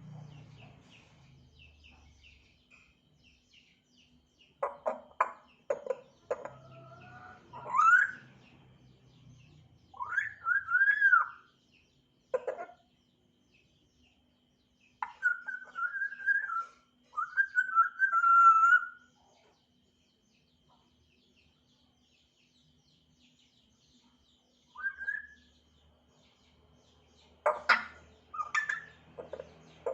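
African grey parrot whistling and calling in separate bouts with pauses between them. It gives clicky calls and a rising whistle, then arched whistles, then warbling whistled phrases, and near the end another burst of clicky calls.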